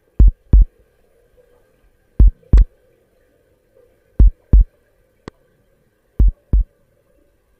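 Heartbeat sound effect: a slow, steady lub-dub double thump every two seconds, over a faint steady hum. There is a single small click near the middle.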